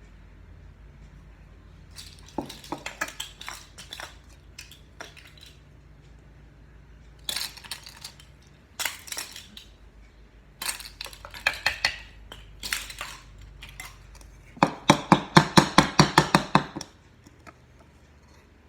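A metal kitchen utensil clinking and tapping against a dish while dry baking ingredients are measured, in scattered short bursts, then a quick run of taps, about eight a second, lasting some two seconds near the end.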